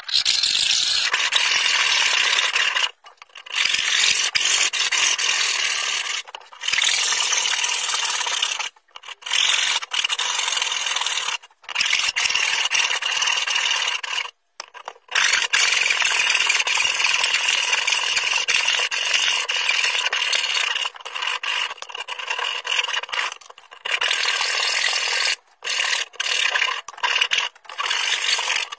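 Wood being rough-cut with a saw to shape a cello scroll: a continuous cutting noise in stretches of several seconds, broken by abrupt short gaps.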